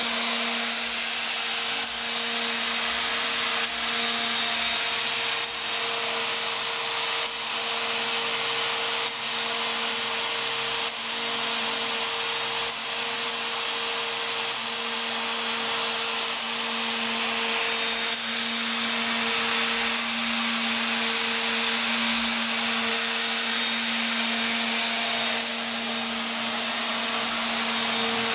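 Router spindle of a DIY CNC machine running with a steady high whine as a 4 mm two-flute endmill mills a gear profile into 12 mm MDF. A short sharp click comes about every two seconds.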